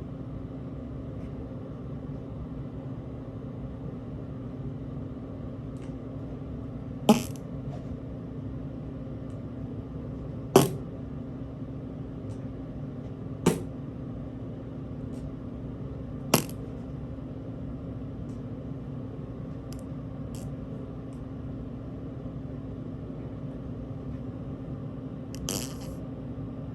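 Four sharp clicks, a few seconds apart, over a steady low hum, with fainter ticks between them and a softer, longer noise near the end.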